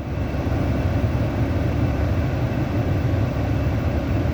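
Steady low rumble of a vehicle running, which builds up just before and then holds even.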